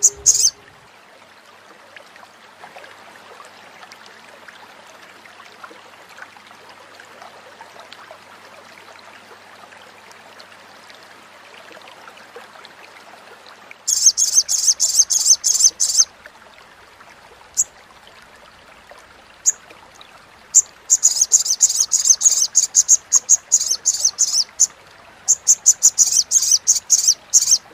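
Olive-backed sunbird giving its rapid chattering call ('crecetan'): fast runs of sharp, high chips in bouts of a few seconds each, starting about halfway through, over a faint steady hiss.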